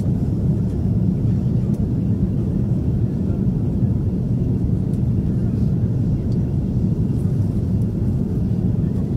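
Airliner cabin noise on approach to landing: a steady low rumble.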